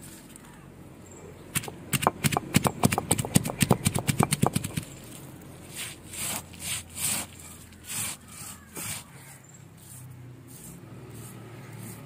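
Stone roller of a grinding stone (ammi) crushing dried red chillies on the stone slab. First comes a quick run of stone-on-stone knocks lasting about three seconds, then slower rubbing strokes about one every 0.7 s as the chillies are ground to paste.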